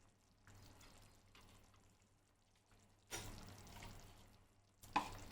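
Slit boiled eggs going into a pot of simmering tamarind curry: after a near-silent stretch, a sudden splash about three seconds in fades over a second and a half, and a second one comes just before the end.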